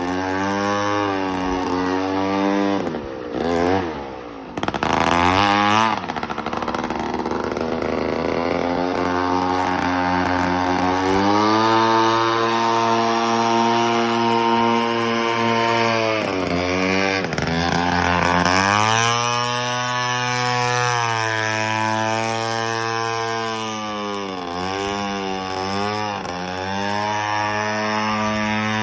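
Remote-control airboat's motor and propeller running at speed, the pitch falling and climbing again several times as the throttle is eased and opened. About four seconds in it briefly drops low before revving back up.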